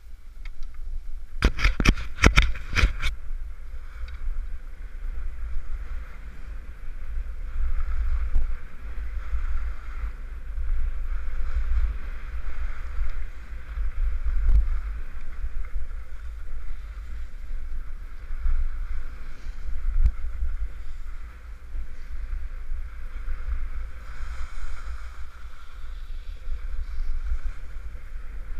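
Wind buffeting the microphone of a helmet-mounted action camera while skiing, a steady low rumble under the hiss of skis sliding on packed snow. A quick run of sharp knocks about two seconds in.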